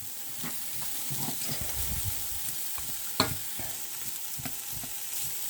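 Cold cooked rice sizzling as it is stir-fried in a hot pan, with a utensil scraping and tapping against the pan now and then; one sharper knock about three seconds in.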